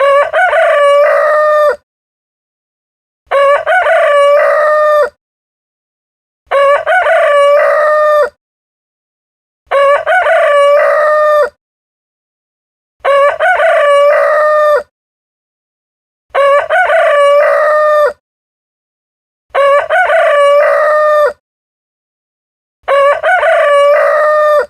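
Rooster crowing cock-a-doodle-doo, eight times at even intervals of about three seconds, each crow about a second and a half long. The crows are identical, the same crow repeated, with dead silence between them.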